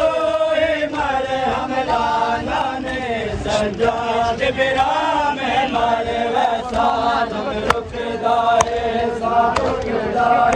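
A crowd of men chanting a noha, a Shia mourning lament, in unison, with the dull slaps of hands beating on bare chests (seena zani matam) underneath.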